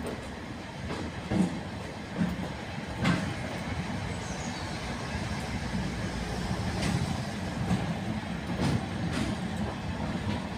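British Rail Class 50 diesel locomotive rolling slowly past at low speed, its English Electric 16-cylinder diesel engine giving a steady low drone, with sharp wheel clicks over rail joints every second or so.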